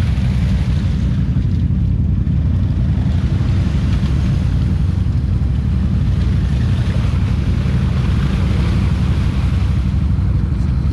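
Utility ATV engine running steadily and evenly at a low pitch, the quad bogged down to its fenders in deep mud.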